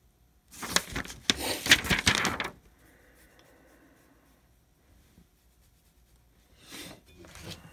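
Handling noise: a loud burst of rustling with quick clicks and knocks for about two seconds, then a softer rustle near the end, as parts and packaging are moved about.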